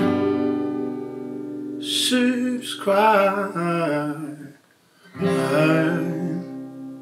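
A man singing to a strummed acoustic guitar: a chord rings out first, then two sung phrases, with a short pause just before the second.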